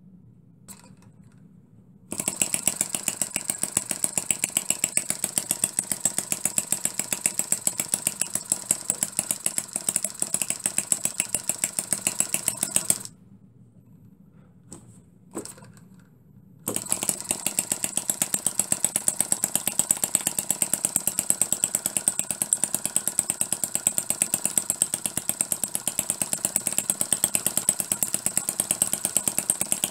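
Scratch-built miniature four-stroke spark-ignition flathead engine, half-inch bore and stroke, started by hand at the flywheel and running with a fast, even exhaust beat. About halfway it falls silent for a few seconds, with a couple of faint clicks, then runs again.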